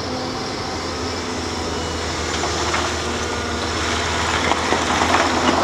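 A small motor runs steadily with an even hiss, as a muddy toy excavator is washed clean. The hiss grows a little louder in the second half.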